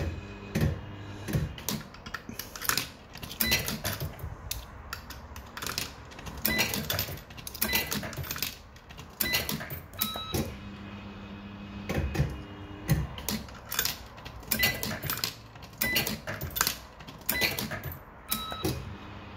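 Bell-Fruit Firecracker fruit machine being played: its electromechanical reels spin and clunk to a stop, with many sharp clicks of the mechanism and buttons over a steady low hum. A few short beeps come from the machine.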